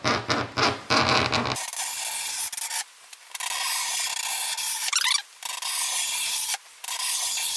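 Hook-blade plexiglass cutter dragged repeatedly along a scored line in an acrylic sheet, scraping in strokes of one to two seconds with short breaks between them; one stroke ends in a brief rising squeak about five seconds in. Each pass deepens the groove so that the sheet can be snapped off along it.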